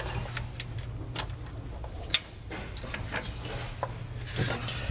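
Small clicks and rubbing of a brake pad wear sensor wire and its rubber grommets being handled and fed over the axle, with one sharp click about two seconds in, over a steady low hum.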